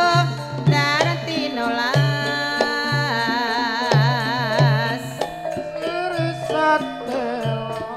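Live Javanese band music: a high melodic line with wide, wavering vibrato over repeated short low drum strokes.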